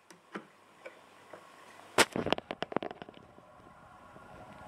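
A hand handling a wooden mantel clock's case and front glass bezel: a few light clicks, then a quick cluster of sharp clicks and knocks about two seconds in.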